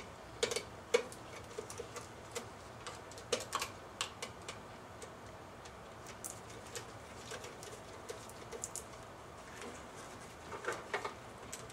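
Irregular small clicks and taps of plastic and rubber as spark plug wire boots and the distributor cap are handled by hand on a 2.8 L V6 with the engine off. The taps come in small clusters about half a second and three seconds in, and again near the end.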